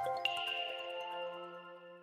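The tail of a OnePlus OxygenOS 14 ringtone: several sustained notes ringing out and fading away, with one high note struck about a quarter second in. The sound dies out near the end.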